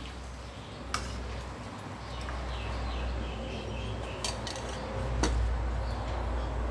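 A metal spoon and a stainless steel bowl clink a few times against an aluminium soup pot as chicken feet are put into the soup, over a steady low rumble.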